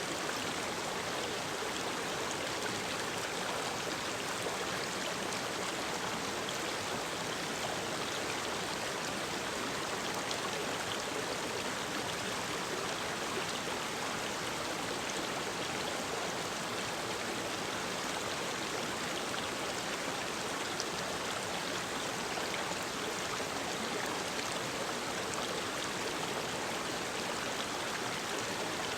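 Mountain stream running steadily, an even rush of water with small splashes scattered through it.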